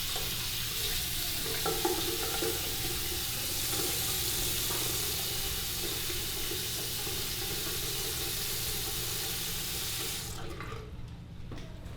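A steady rushing hiss that cuts off about ten seconds in.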